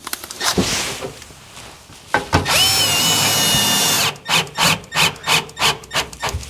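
Cordless drill-driver driving a screw into a timber block: a steady motor whine for nearly two seconds, then a run of short pulses about three a second.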